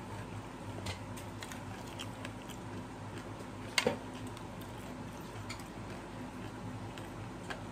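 Spoon clicking and tapping against a plate while papdi chaat is eaten: scattered small clicks, the sharpest about four seconds in, over a steady low hum.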